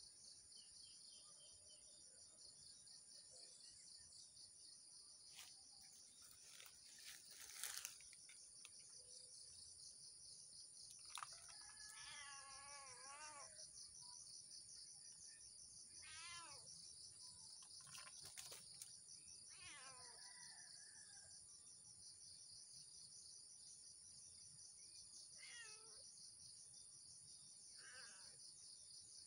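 A domestic cat meowing about five times, in faint, drawn-out, wavering calls, over a steady high insect drone. A sharp click is heard just before the first call.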